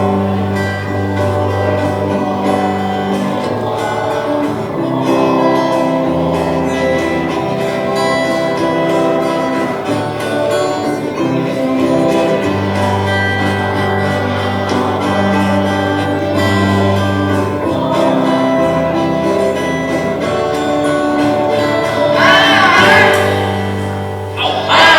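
Music with steady held notes over a slowly changing bass line; a singing voice comes in near the end.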